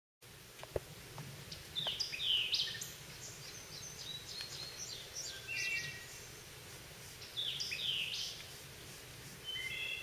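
White-eyed vireo singing: two loud, quick swooping song phrases about six seconds apart, with shorter high notes and clear whistled notes from other birds between them. A single sharp tick sounds under a second in.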